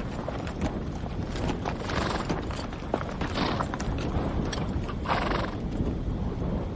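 Several horses' hooves clopping on hard, dry ground as the horses are led away, with three short neighs about two, three and a half and five seconds in.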